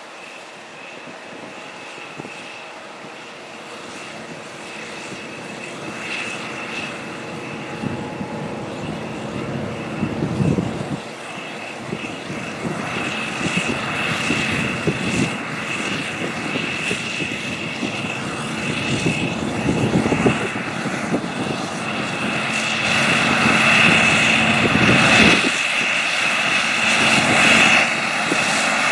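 620 hp John Deere 9620R four-wheel-drive tractor pulling an air drill, its engine running under steady load and growing steadily louder as it approaches, with a steady high whine over the engine drone.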